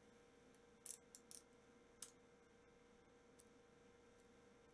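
Near silence: a faint steady hum with a handful of faint small ticks, clustered about a second in and again at two seconds.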